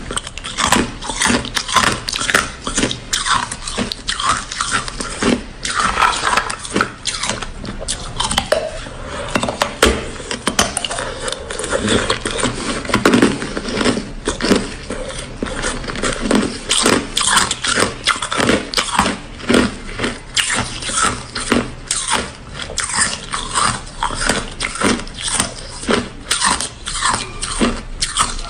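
Ice being bitten and chewed close to the microphone: a dense, irregular run of sharp crunches and cracks, several a second.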